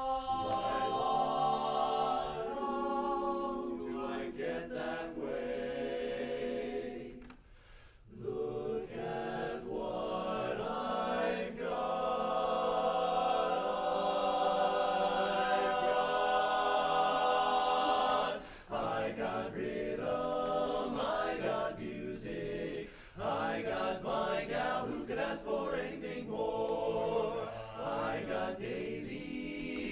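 Men's barbershop chorus singing a cappella in close harmony. The singing stops briefly about a quarter of the way in, and the loudest part is a long-held chord near the middle.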